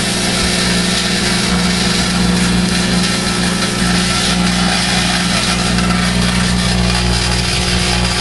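Microwave oven switching on and running with a steady, loud electrical hum and hiss.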